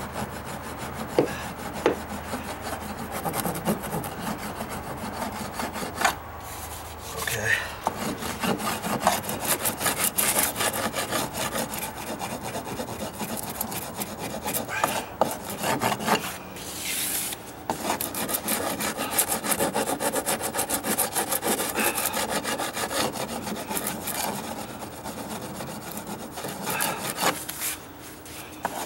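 Hand sanding the edge of a weathered wooden deck stair tread with the contoured side of a sanding block, in rapid back-and-forth scratchy rubbing strokes with a couple of brief pauses. It is surface prep, knocking back rough wood and loose paint before priming.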